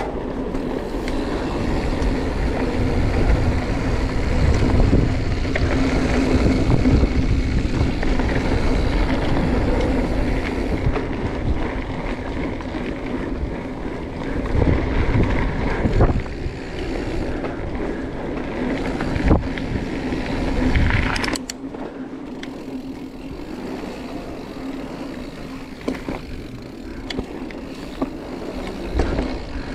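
Marin Mount Vision 8 mountain bike ridden along a dirt singletrack: a steady rumble of tyres and wind on the handlebar-mounted camera, with a few sharp knocks as the bike goes over bumps. The rumble drops noticeably about two-thirds of the way through, leaving lighter rolling noise and scattered clicks.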